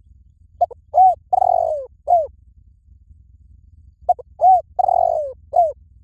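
Spotted dove cooing: two phrases of four notes each. In each phrase, a short note and an arched note come first, then a longer falling note and a short falling note.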